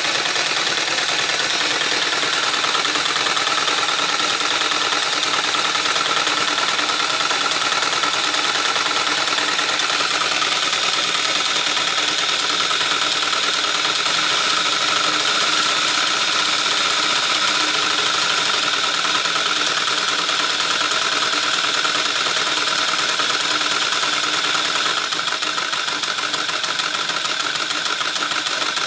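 Motorised LEGO V-twin engine model running steadily, a continuous plastic whirring of motor, gears and pistons with a steady high tone, dropping slightly in level near the end.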